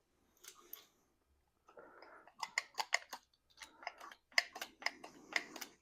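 Irregular light clicks and rattles of small metal carburetor parts being handled and worked, starting about two seconds in.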